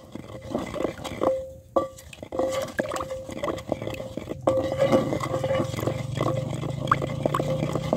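Wooden pestle stirring and mashing yogurt raita in a terracotta bowl, with irregular wet scraping and knocks of wood on clay. A low steady hum comes in about halfway through.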